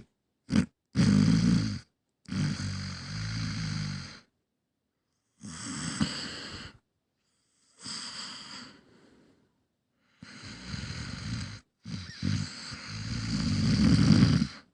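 Snoring: a series of noisy, pitched breaths, each one to three seconds long with short pauses between them. The last one, near the end, is the loudest.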